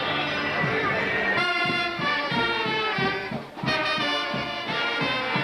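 Uniformed wind band of saxophones and brass playing in the street, holding full chords over a steady drum beat. The sound dips briefly about three and a half seconds in.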